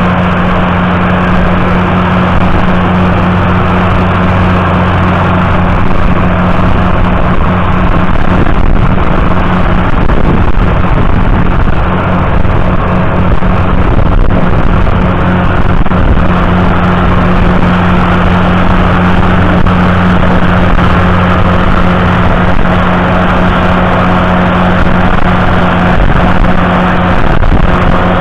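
John Deere 7710's 8.1-litre six-cylinder diesel engine running under heavy load, pulling a deep single-furrow plough through the soil. A loud, steady drone that wavers briefly about ten seconds in, then settles again.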